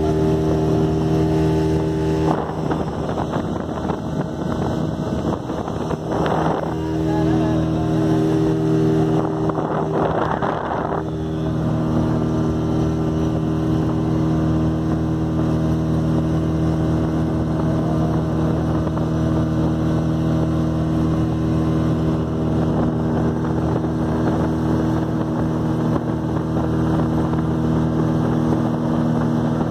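Speedboat engine running steadily under way, with water and wind rushing past. Its note is unsettled for several seconds early on, with a couple of brief louder rushes, then holds steady.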